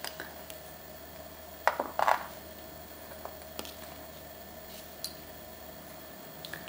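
A few light clicks and clinks of lace bobbins and pins being handled on a bobbin-lace pillow while pairs are hooked onto pins. The loudest pair comes about two seconds in, with scattered softer ones after, over a faint steady hum.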